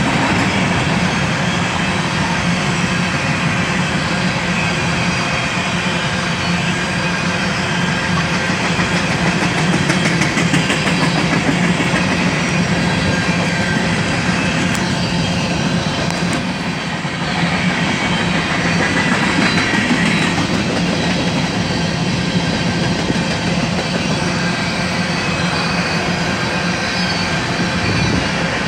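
BNSF freight train's covered hopper cars rolling past close by: a loud, steady rumble and clatter of steel wheels on the rails, briefly dipping about seventeen seconds in.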